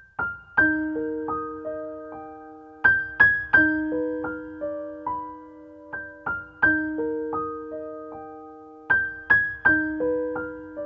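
Solo piano playing slow, gentle background music: single notes struck one after another and left to ring over a held low note, in a phrase that repeats about every three seconds.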